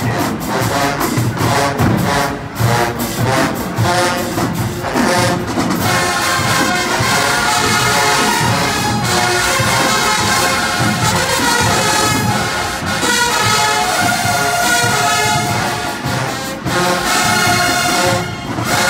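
College marching band playing: brass over drums, with sharp punched hits for the first six seconds or so, then long held brass chords.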